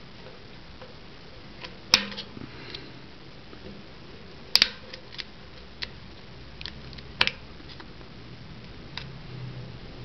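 Small flat-bladed screwdrivers clicking against the steel snap ring and sprocket of a Shimano Alfine 8-speed hub as the ring is pried up. There are a handful of sharp metallic clicks, the loudest about two, four and a half, and seven seconds in.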